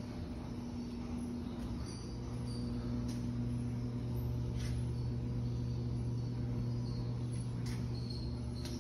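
Steady low hum, with a few faint short high chirps and ticks scattered through it.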